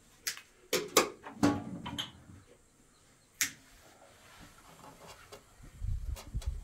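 A handful of sharp clicks and knocks of objects being handled, most in the first two seconds and one more about three and a half seconds in, then a low rumble near the end.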